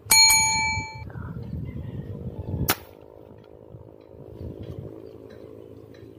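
A bell-like chime from a subscribe-button animation rings for about a second over a low rumble. About two and a half seconds in comes one sharp crack of the air gun firing.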